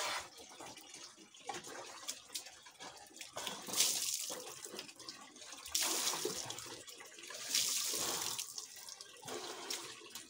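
Water poured and splashed over a bathing person with a plastic dipper and by hand, splashing onto a wet concrete floor over a steady run of water. There are several louder surges, roughly every two seconds.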